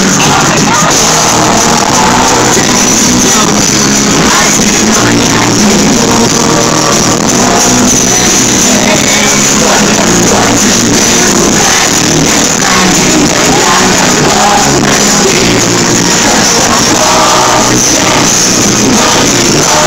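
Live pop music played loud and steady by a boy band in concert, with some singing.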